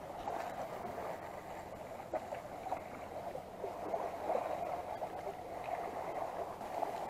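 Seawater lapping and sloshing among the concrete tetrapods at the foot of a breakwater, a steady uneven wash.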